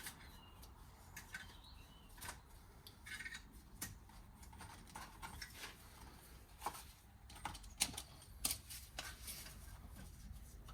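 Scattered light clicks and taps of hand tools on metal engine parts, irregular and a little under a second apart, as parts are worked out of the cylinder head.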